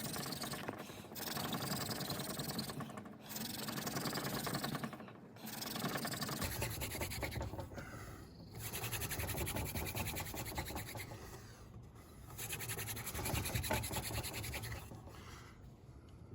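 Horseweed hand-drill spindle spun between the palms, grinding into the end grain of a very hard wooden fireboard: a dry rasping rub in repeated bouts of one to three seconds with short breaks between them. It is the final hard drilling to build up an ember in the notch.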